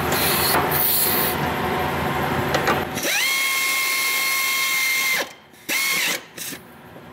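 Pneumatic air ratchet driving a running-board bracket bolt into the truck's frame. It makes a rattling, ratcheting run for about three seconds, then a steady high whine that cuts off about five seconds in, followed by one short burst of the same whine.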